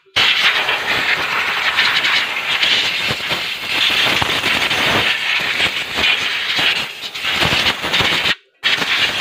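Compressed air blasting over the rear drum brake shoes and backing plate, a loud steady hissing rush with some crackle. It breaks off sharply for a moment near the end and starts again.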